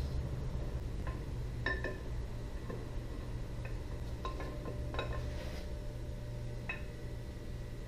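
Camshaft of a Mercruiser 3.0 block being slid out by hand through its bearings, the lobes and journals clinking lightly against the metal a handful of separate times.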